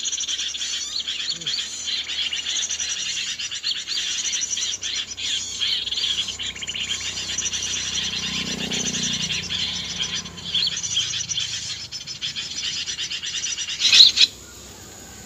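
Dense, continuous chattering of many small birds, the busy bulbul chorus of a bird-trapping lure recording. It cuts off abruptly near the end, just after a short sharp sound.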